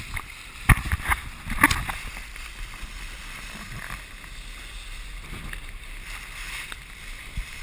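Water splashing and slapping against the hull of a Tempo scow sailing fast through chop, with wind on the microphone. A few sharp slaps come in the first two seconds, then a steady rush of water and wind.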